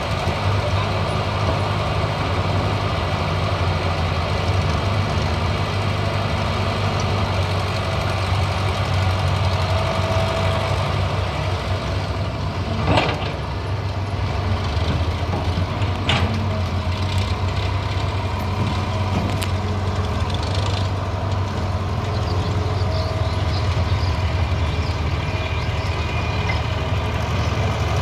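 Diesel engines running steadily: a Caterpillar hydraulic excavator working as it digs soil and loads a tractor trailer, with a farm tractor idling alongside. Two sharp knocks come about halfway through, three seconds apart.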